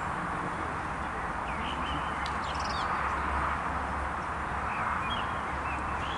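Steady outdoor background noise with a low rumble, and a few faint short calls in the distance.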